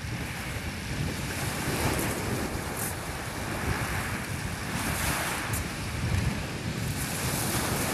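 Small waves breaking and washing up a shingle beach, swelling every few seconds, with wind buffeting the microphone.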